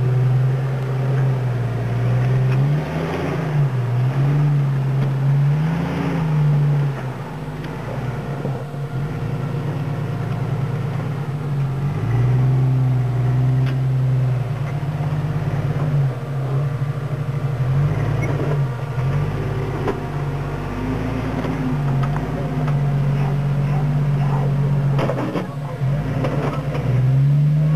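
Tube-frame rock buggy's engine revving up and falling back again and again as it crawls up boulders under load, with a few sharp knocks near the end.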